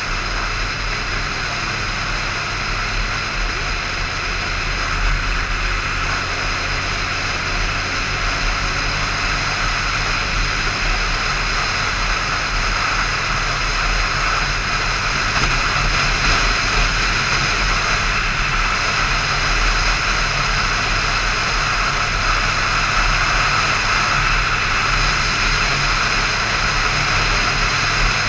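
Motorcycle engine running steadily at riding speed, heard under a strong rush of wind over the mounted camera's microphone. The engine note shifts about three seconds in.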